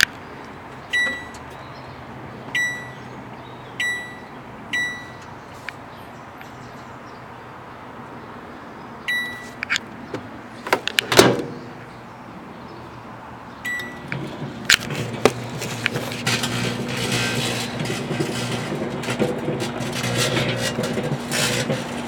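Microwave oven keypad beeping about six times as it is set, a loud clunk partway through, then the oven starts humming and the steel scrubber inside begins arcing, with rapid crackling and popping over the hum.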